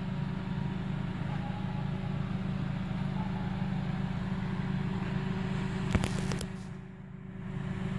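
Steady low hum of a running vehicle engine, with a couple of clicks about six seconds in.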